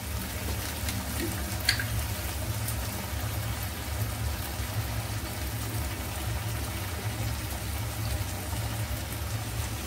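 Vegetables frying in a steel wok over a gas burner: the burner's steady low rumble with faint sizzling, and a light tap of a spoon about two seconds in.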